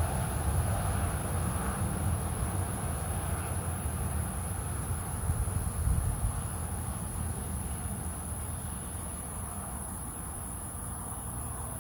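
Steady high-pitched drone of insects over a low rumble. The rumble is loudest in the first half and eases off after about eight seconds.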